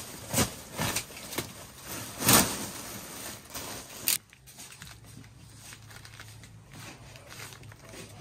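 Foil-faced insulation on old round ductwork crinkling and tearing as it is pulled down by hand: a few sharp rips in the first few seconds, the loudest about two seconds in, then quieter rustling.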